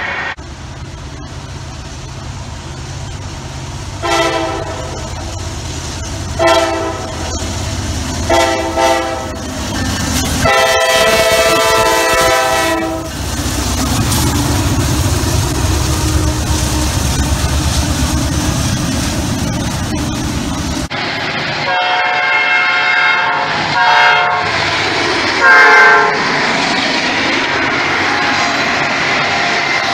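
Diesel locomotive multi-chime air horn giving a horn salute: several short blasts and then one long one over the low rumble of the locomotive's engine. After an abrupt change partway through, another train horn sounds in a few more blasts, the last one dropping in pitch as the train passes, with the clatter of wheels on the rails.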